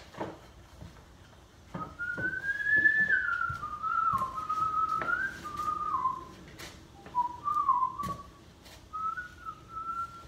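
A person whistling a tune, one wavering melody in short phrases starting about two seconds in, with scattered light knocks and clicks throughout.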